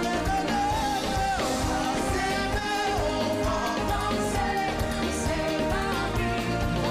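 A singer performing a song with a live band accompanying, over a steady beat.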